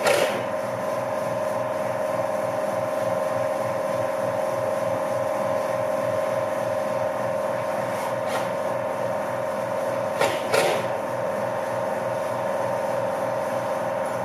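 A steady machine hum with an even low pulse running throughout. A few short knocks sound over it: one at the start and two close together about ten seconds in, fitting cabinet panels being handled.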